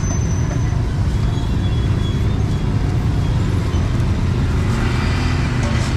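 Street traffic noise: a steady, continuous rumble of passing road vehicles.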